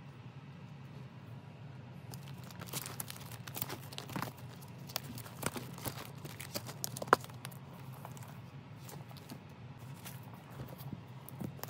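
Clear plastic binder sleeves crinkling and rustling as photocard binder pages are handled and turned, with scattered clicks and taps, the sharpest about seven seconds in. A steady low hum lies underneath.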